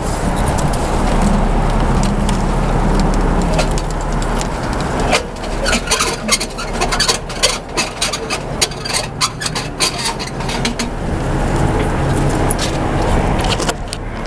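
Wind rumbling on the microphone, with a quick run of sharp clicks and clinks from about five to eleven seconds in as parts of the HID light fixture are handled.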